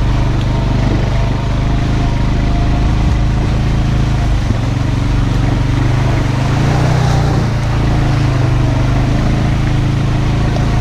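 Honda Rancher 420 ATV's single-cylinder four-stroke engine running steadily while being ridden, the revs rising briefly partway through.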